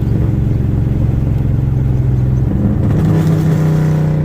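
Dodge Charger engine and exhaust running loud at steady revs, the pitch stepping up slightly about three seconds in as the revs rise.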